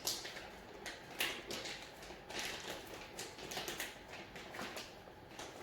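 Small metal hardware such as lock washers, nuts and Allen bolts being sorted by hand, making an irregular string of light clicks and taps.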